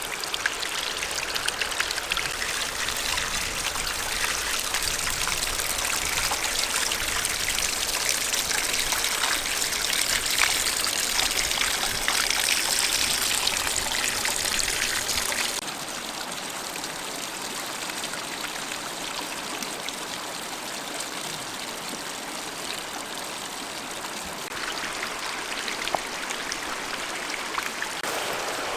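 Running water trickling and splashing steadily. It drops in level about halfway through and changes again near the end.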